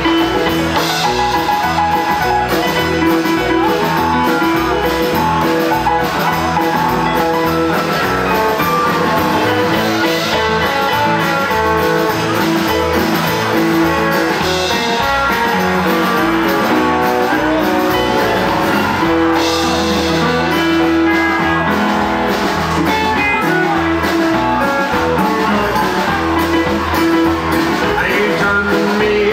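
Live rockabilly band playing an instrumental passage: electric guitar over acoustic rhythm guitar, upright double bass and keyboard, at a steady beat.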